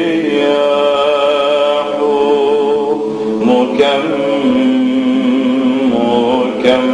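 A man chanting an Orthodox Christian liturgical hymn, drawing out long held notes that bend slowly from one pitch to the next.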